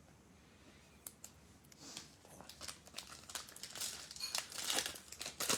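Wrapper of a Panini Playoff football trading-card pack crinkling and tearing as it is opened by hand. It starts with a few small clicks after about a second of quiet and grows louder toward the end.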